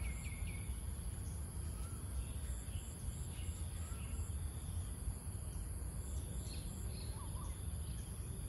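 Outdoor ambience: a steady low rumble under a constant high insect drone, with a few bird chirps. A quick run of short falling chirps comes right at the start, and single faint chirps follow later.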